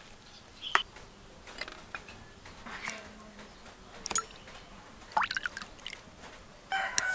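Tamarind juice and fish sauce poured into a glass bowl: small splashes and drips, with a few light clicks and a louder stretch of pouring near the end.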